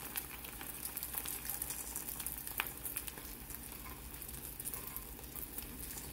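Roti paratha with egg frying in a nonstick pan: a steady sizzle with small crackles, as it is cooked a little longer to dry and crisp. A single sharp click about two and a half seconds in.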